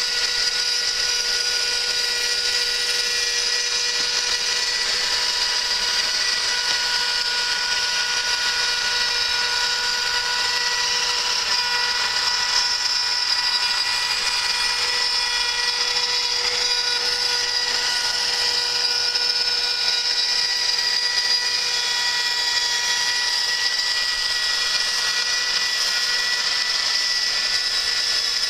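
Spindle of a home-built CNC router milling 5 mm aluminium plate: a steady high-pitched whine over a constant hiss of the cutter in the metal.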